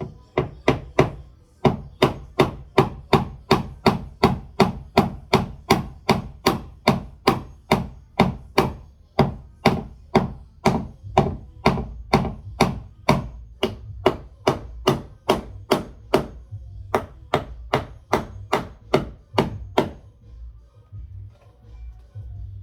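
Hammer driving a glued wooden dowel into a stripped hinge-screw hole in a wooden door frame: a steady run of sharp knocks, about two and a half a second, that stops near the end.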